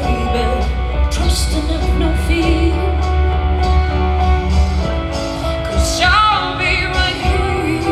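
Live music: a woman singing into a microphone over instrumental backing with a strong bass line. About six seconds in she holds a note with a wavering vibrato.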